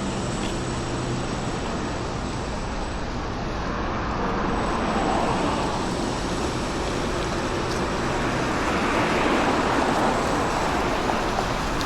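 Busy city street traffic: a steady wash of road noise from passing vehicles, growing louder twice as vehicles go by, once about four seconds in and again more strongly later on.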